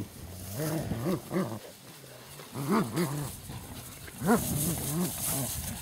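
Two shepherd-type dogs growling in play while they tug at a stick between them, in a string of separate rising-and-falling growls.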